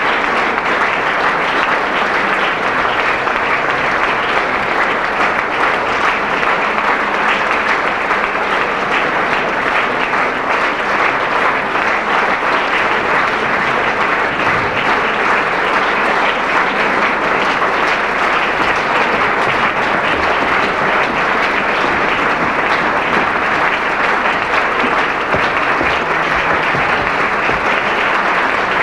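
Theatre audience applauding steadily, a dense sustained clapping that holds the same level throughout.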